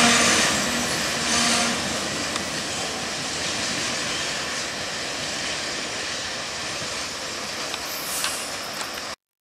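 Freight train's covered hopper cars rolling past on the rails and drawing away, a steady rolling noise that slowly fades. A brief squealing from the wheels in the first two seconds and a few clicks near the end; the sound cuts off suddenly just before the end.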